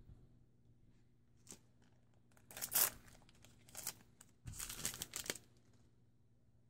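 Foil trading-card booster pack wrapper crinkling and tearing open in a few short bursts, the loudest about two and a half seconds in and again about four and a half to five seconds in.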